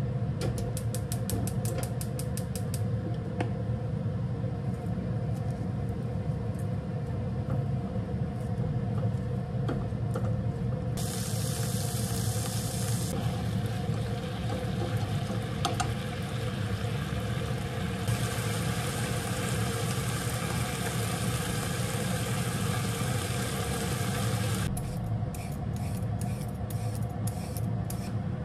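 Sliced pork frying in a non-stick pan, sizzling in two long spells while it is stirred with chopsticks, over a steady low hum. Quick clicks come in the first few seconds, and near the end there is a run of short scraping strokes as a peeler shaves a carrot into ribbons.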